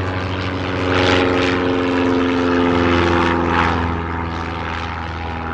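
Propeller plane's engine droning steadily.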